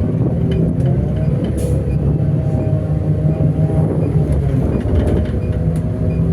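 City bus running along the road, heard from inside the bus: a steady engine hum with road noise and a few light clicks.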